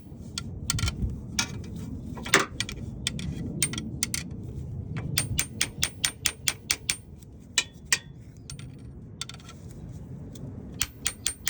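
Runs of quick, evenly spaced light metallic clicks from hand-tool work on the 2.4 L engine's crankshaft timing sprocket while it is being worked onto the crank. There are a few clicks about two seconds in, a fast run of about six a second around the middle, and another run near the end, over low handling noise.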